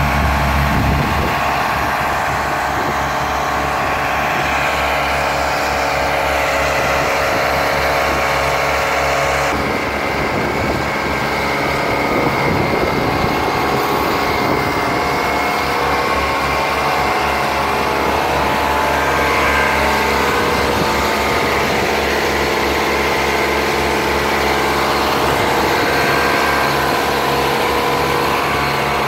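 Steady mechanical drone with a rushing hiss: a pneumatic blower plant conveying cattle-feed nuts through pipes into a ship, with tipper truck engines running.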